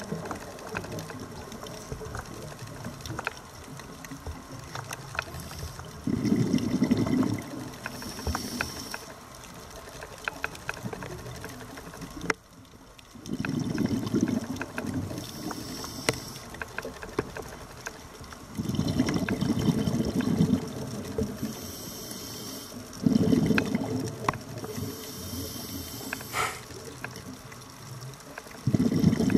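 Scuba diver breathing underwater through a regulator: a loud burst of exhaled bubbles about every five seconds, with a hissing inhalation between bursts. Faint scattered clicking and crackling runs underneath.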